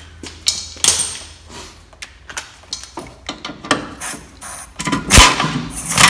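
Scattered metal clicks and clanks of bolts and tools being handled, then about five seconds in a pneumatic air ratchet runs briefly, snugging a rear suspension bolt.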